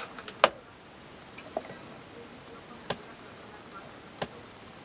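Handling noises: a handful of sharp clicks and light taps, spaced a second or more apart and loudest about half a second in, as a hot glue gun is put down and a cardboard figure is pressed into a tin can.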